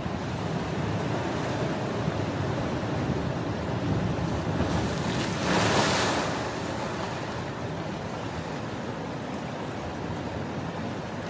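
Sea surf washing through a narrow rocky channel, a steady wash with one wave surging and splashing up about halfway through, the loudest moment. Wind rumbles on the microphone.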